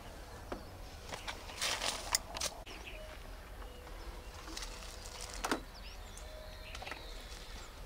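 A few brief rustles and knocks, the loudest around two seconds in and again about five and a half seconds in, over faint outdoor background with small bird chirps.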